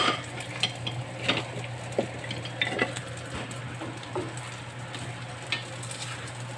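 Wooden spatula stirring and tossing spaghetti in a stainless steel frying pan, with irregular soft scrapes and taps against the pan over a light sizzle of butter and sausage. A steady low hum runs underneath.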